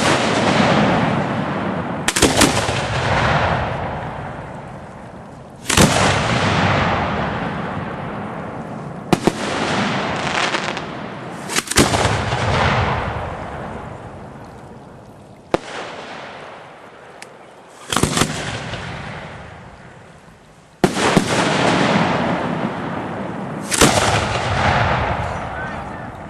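Professional aerial fireworks shells firing and bursting: a sharp bang every two to four seconds, about ten in all, each followed by a long rolling rumble that dies away.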